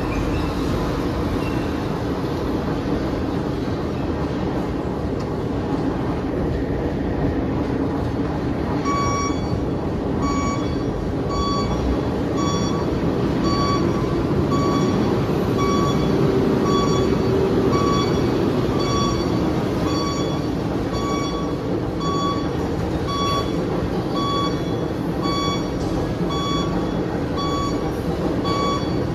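Heavy machinery running with a steady noise. From about nine seconds in, a dump truck's reversing alarm beeps evenly, a little more than once a second, as the truck backs up to the crusher hopper.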